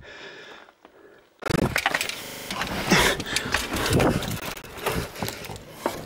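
Quiet at first, then about a second and a half in a sudden, loud stretch of rustling, crackling and knocking begins, as the camera is jostled and rubbed while being moved.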